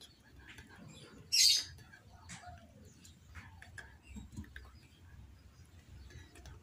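Birds chirping and calling faintly in the background, with short falling calls, and one short, loud, hissy squawk-like burst about a second and a half in.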